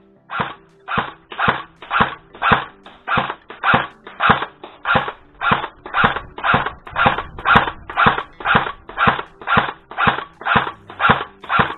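CYMA CM.506 M4A1 airsoft electric rifle firing single shots at a steady pace, a little under two a second, each a short whir-and-slam cycle of its version 2 gearbox.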